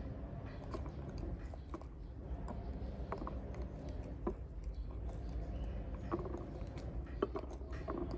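Soft, scattered clicks and crackles of a ripe pomegranate being pulled apart by hand and its seeds picked out, over a steady low hum.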